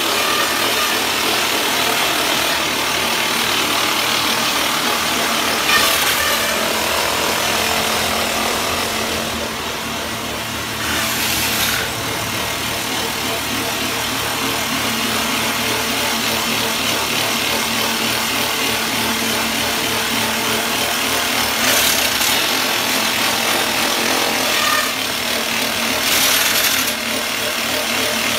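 DT1-14 rock drilling rig running: a loud, steady, harsh mechanical noise that swells briefly a few times.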